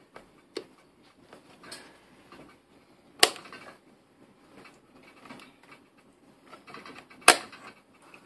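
Plastic clicks from the controls of a handheld digital multimeter as its buttons and selector are worked by hand, with light handling rustle between them. Two sharp clicks stand out, about three and seven seconds in.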